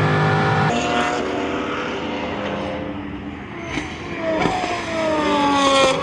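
Pagani Huayra R's naturally aspirated V12 running at speed on track. The engine note eases and quietens through the middle, then comes back strongly in the last couple of seconds with a pitch that slides down and levels off.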